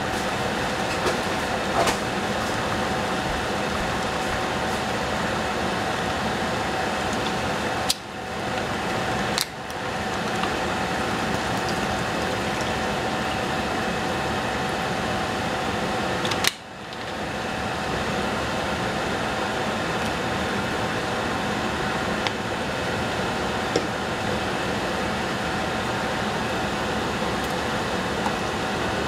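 Steady fan-like whirring noise with a faint constant hum through it. A few sharp clicks are heard, and the noise briefly drops just after those about eight and about sixteen and a half seconds in.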